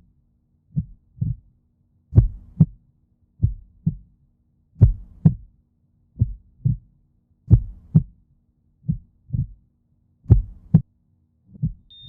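Heartbeat, slow and even: paired lub-dub thumps, one pair about every second and a half, with silence between the pairs.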